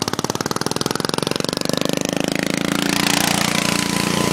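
Racing lawnmower's swapped-in small engine running, its separate firing beats quickening over the first two seconds until it settles into a steady, faster run.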